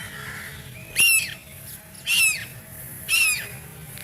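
Duckling giving loud, high-pitched distress peeps, three arched calls about a second apart, the cries of a frightened baby duck.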